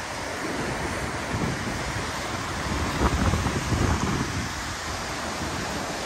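Rough sea surf washing over a rocky shore, a steady rush of breaking waves. Wind buffets the microphone with low rumbling gusts, strongest about three seconds in.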